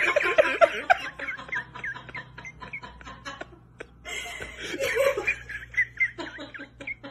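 A person laughing in two bouts of quick, choppy pulses. The first bout trails off about three seconds in, and the second starts about a second later.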